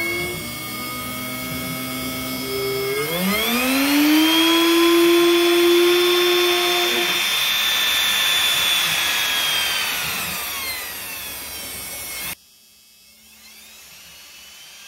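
Genmitsu brushed DC spindle motor running on a PWM speed controller: a whine that rises in pitch about three seconds in as the speed knob is turned up, holds at high speed, then eases slightly lower. Near the end it drops abruptly to a much quieter level.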